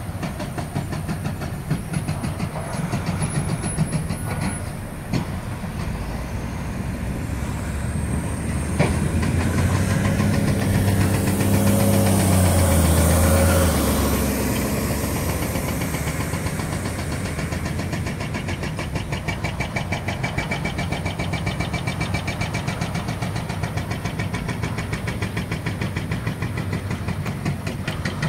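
Diesel engines of demolition excavators running steadily, with a few sharp knocks early on. A louder engine swells up and fades away about midway.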